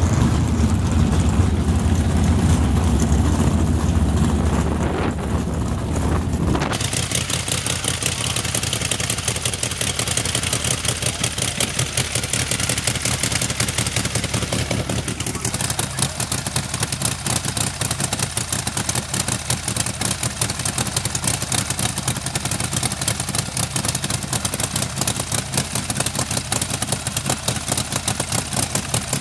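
Nitro-fuelled drag-racing Harley-Davidson motorcycle engine running at a steady rapid firing. Its sound changes abruptly about seven seconds in, turning less deep and more rasping, and shifts again around fifteen seconds in.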